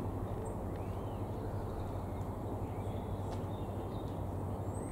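Steady low outdoor rumble, with a few faint, distant bird chirps over it about a second in and again past the middle.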